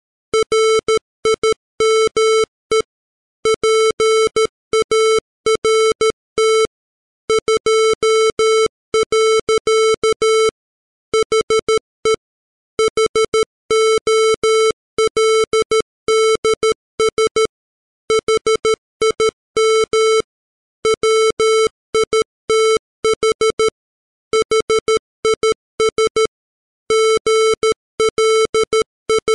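Morse code as a computer-generated 440 Hz square-wave tone at 13 words per minute: on-off beeping of short dots and longer dashes, with short gaps between letters and longer gaps between words.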